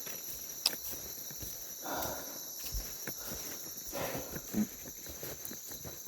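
Steady high-pitched insect chorus of the tropical forest, with scattered clicks and rustling crunches about every two seconds.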